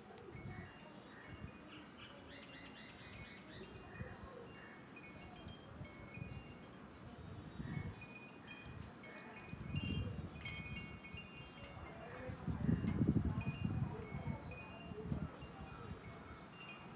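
Wind chimes tinkling: scattered light ringing tones throughout, over uneven low rumbles that swell loudest about three quarters of the way through.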